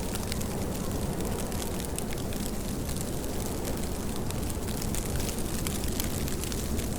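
Steady heavy rain: an even hiss thick with sharp drop impacts over a deep low rumble.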